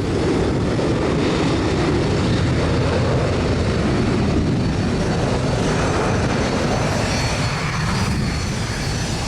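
Airliner engines running: a loud, steady noise with no pauses.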